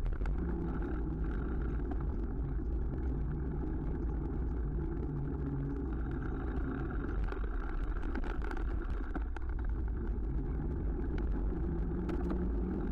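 Steady low wind rumble on a bike-mounted camera's microphone while cycling, mixed with the hum of car engines in slow traffic just ahead. An engine note rises near the end.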